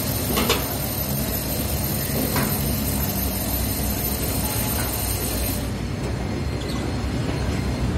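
Construction-site noise: a steady low rumble of engines or machinery, with a sharp knock about half a second in and another about two and a half seconds in.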